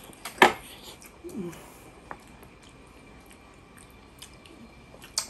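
People chewing mouthfuls of whole balut (boiled fertilized duck egg), with soft wet mouth noises and a sharp click about half a second in.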